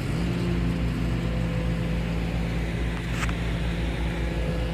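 Boat engine idling steadily, a low, even hum with a pulsing rumble underneath, which comes in with a slight rise in pitch right at the start. A single short click about three seconds in.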